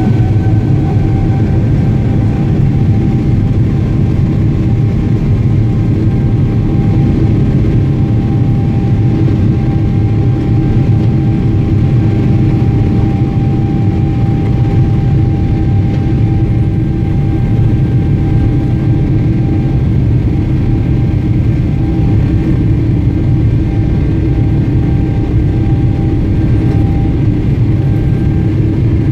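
Boeing 777-300ER's GE90 turbofan engines running at takeoff thrust, heard inside the cabin beside the wing: a loud, steady roar with a whine held at one pitch.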